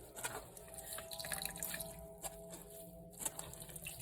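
Coconut milk dripping and trickling in faint, irregular splashes as watered grated coconut is squeezed by hand through a strainer.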